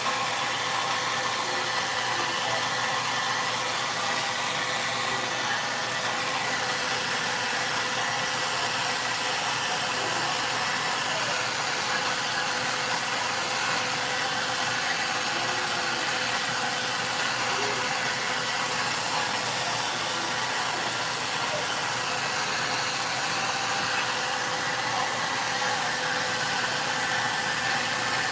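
VONE handheld hair dryer running steadily: a constant rush of blown air with an even motor hum under it.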